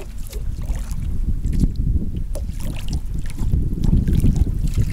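Wind buffeting the microphone as a strong uneven low rumble, with faint small splashes of water lapping at a small boat's hull.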